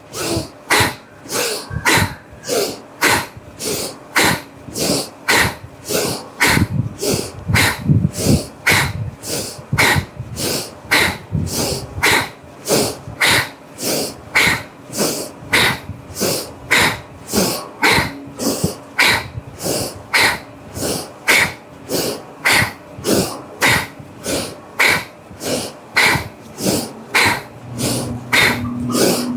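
Bhastrika (bellows breath): forceful, rapid inhalations and exhalations through the nose, in an even rhythm of about two strokes a second.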